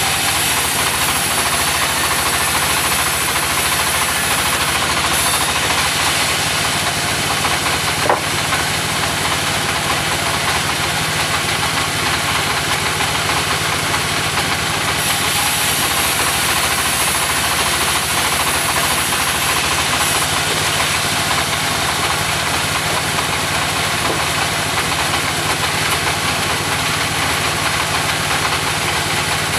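Engine of a portable sawmill running steadily, with a single sharp knock about eight seconds in.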